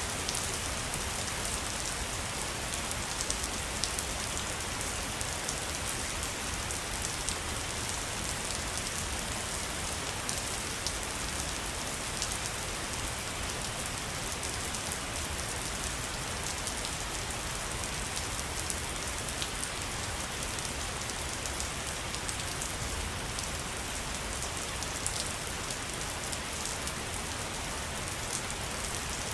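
Waterfall: a steady rush of falling water, with small splashes flecking through it.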